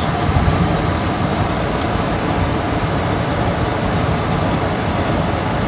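A vehicle driving slowly, heard from inside its cab: a steady, mostly low-pitched rumble of engine and road noise.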